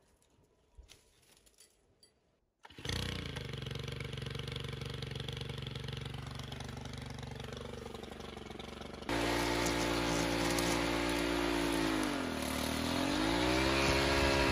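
Gas string trimmer's small petrol engine starting up suddenly about three seconds in and running steadily. It then runs faster and louder in the later part, its pitch sagging briefly and recovering as the line cuts through grass.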